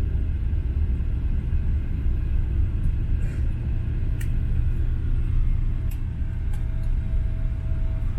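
Steady low rumble inside the cabin of a Boeing 777-300ER rolling on the ground just after landing, with a few faint clicks.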